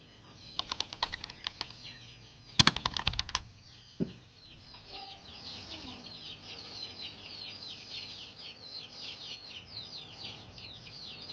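Two runs of sharp clicks and a single knock, then from about four seconds in, many birds chirping busily in quick, high, falling notes.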